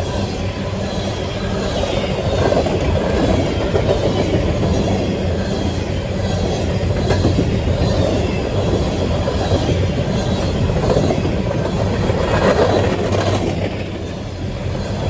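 Loaded CSX coal train rolling past, the steel wheels of its cars running on the rails in a steady, loud noise.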